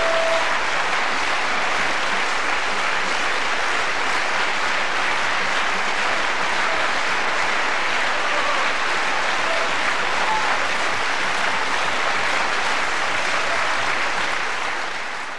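Concert audience applauding, a dense and steady clapping that fades out near the end.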